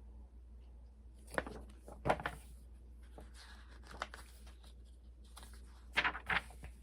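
Paper pages of a picture book being handled and turned: a few short crisp rustles, about a second and a half in, two around two seconds, one at four seconds and two near the end, over a steady low hum.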